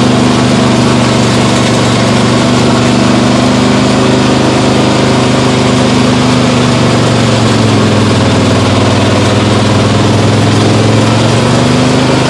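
Snowblower engine running steadily under load while the machine throws a stream of snow, with a hiss of blowing snow. Its pitch sags slightly about seven seconds in and then recovers.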